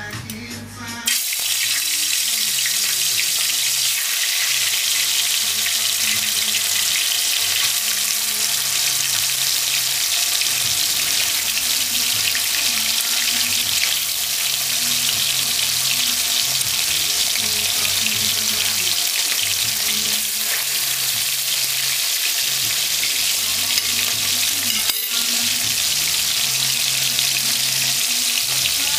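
Seasoned chicken pieces frying in hot oil in a pan: a steady sizzle that starts suddenly about a second in as the pieces go into the oil.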